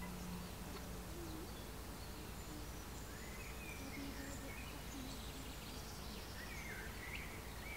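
Faint outdoor background noise with distant birds chirping now and then.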